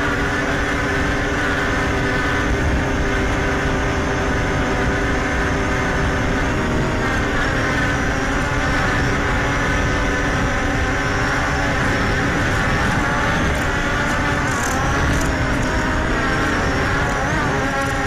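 Aosenma CG035 quadcopter's motors and propellers running with a steady multi-tone whine, the pitch shifting about seven seconds in and again near the end as the throttle changes.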